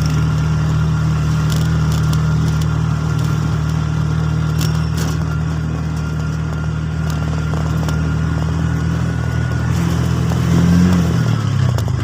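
Motor vehicle engine running steadily at an even speed, its pitch shifting about ten seconds in as the speed changes.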